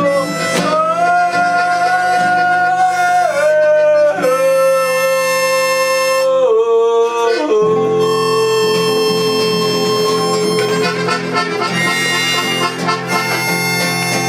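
Instrumental music: long held melody notes that step up and down in pitch, over a steady low chord.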